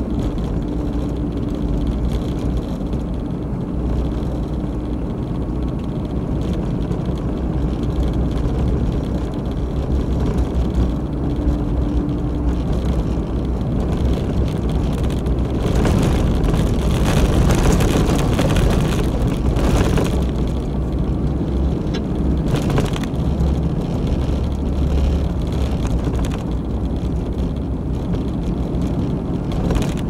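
Steady in-cabin road noise of a moving car: engine and tyre rumble, with a louder, hissier stretch a little past halfway through.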